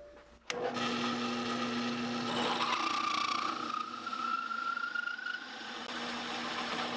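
Drill press starting up about half a second in and running at a slowed belt speed, its hole saw cutting into a metal plate. A rising squeal from the saw teeth in the cut lasts for about three seconds in the middle, then the steady running sound returns.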